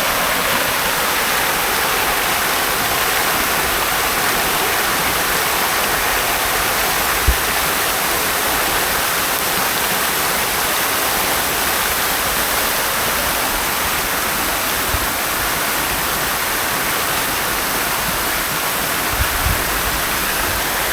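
Fountain water splashing steadily in an even, unbroken rush. A few brief low thumps break in, the clearest about seven seconds in.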